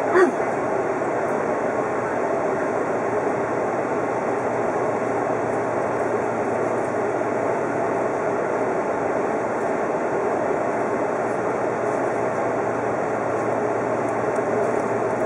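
Steady, even hum and hiss of an electric express train standing at the platform with its onboard equipment running, heard from inside its front cabin. A brief louder sound comes right at the start.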